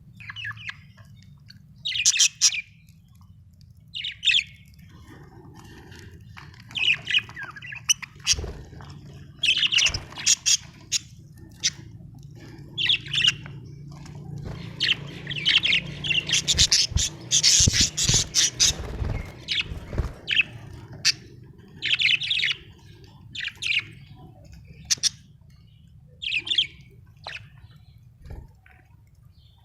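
Budgerigars chirping and squawking in short bursts, with a busier stretch of chatter in the middle. A steady low hum runs underneath.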